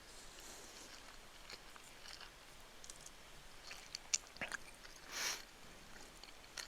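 Close-up eating sounds of chicken fried rice being chewed, with scattered small clicks and a brief hiss about five seconds in.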